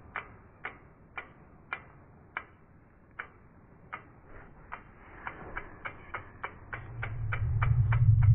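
Logo-animation sound effects: a run of sharp ticks, spaced out at first and quickening to about three or four a second, with a low rumbling swell rising over the last second or two.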